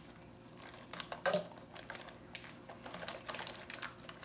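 Ice cubes handled in a bowl and dropped by hand into a large glass jar of drink: scattered light clicks, the loudest about a second in.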